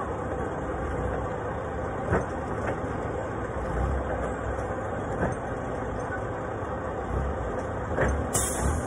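Forklift engine running steadily while it manoeuvres, with a few sharp knocks.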